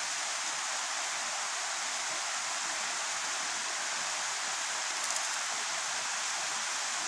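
Steady rush of flowing water from a waterfall or stream, with a brief faint rattle about five seconds in.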